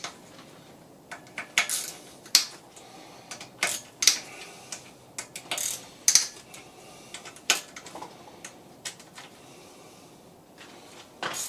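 Hand tools at work on the top of an engine's cylinder head: scattered short metal clicks, clinks and scrapes, irregular and about a second apart, as bolts and cam parts are undone.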